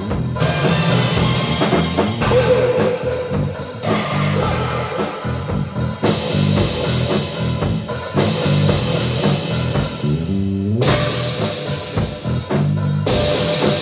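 Improvised rock jam: a band playing guitar over a drum kit, with sustained chords changing every couple of seconds. About ten seconds in, the upper sound drops away under a rising slide, then the full band comes back in.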